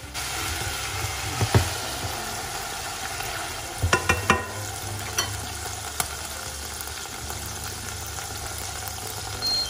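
Teriyaki chicken sizzling in its sauce in a small nonstick saucepan, with a steady sizzle throughout. A plastic rice paddle stirs the pieces and knocks against the pan, once at about a second and a half and in a quick cluster about four seconds in.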